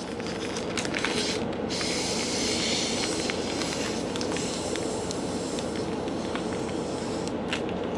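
Air being sucked steadily through a drinking straw out of a zip-top plastic bag, a long continuous hiss, with a few small crinkles of the plastic as the bag draws tight around its contents.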